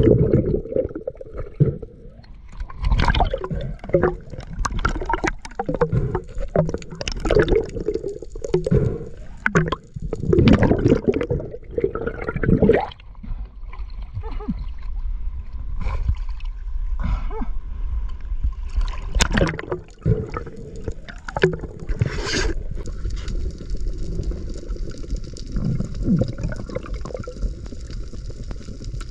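Water heard through a spearfisher's underwater action camera: a low underwater rumble with irregular gurgling, sloshing and splashing surges as the diver moves through the water and breaks the surface.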